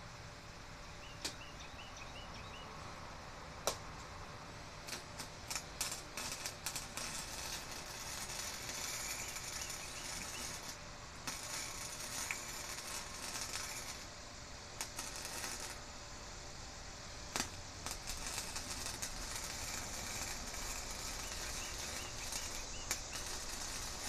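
Electric arc welding: a few sharp crackling starts as the arc is struck, then a steady crackling sizzle in long runs, broken by short pauses.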